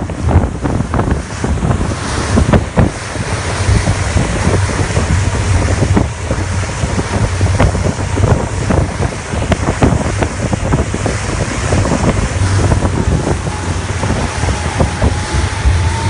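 Motor tender running fast over choppy sea: wind buffeting the microphone and water rushing and slapping at the hull, with a steady low engine drone underneath. A faint steady whine comes in over the last few seconds.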